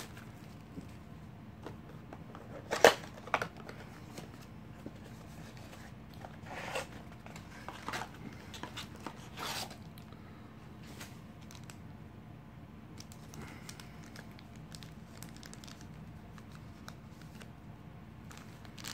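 A pack of Status basketball trading cards being torn open and handled. A sharp tear about three seconds in is the loudest sound, followed by a few softer crinkles and rustles of the wrapper, then quiet handling over a faint steady hum.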